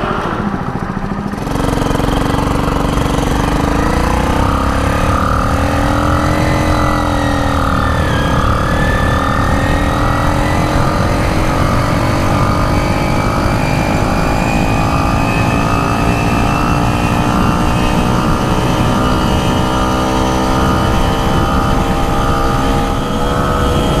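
Small 49cc motorized-bicycle engine running under the rider, heard from on the bike. It picks up about a second and a half in, its pitch rises and falls back around the eighth second, then climbs slowly and steadily as the bike gathers speed.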